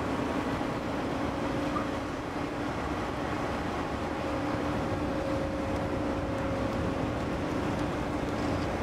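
Steady drone of heavy dockside machinery, with a faint steady hum running through it and no knocks or sudden events.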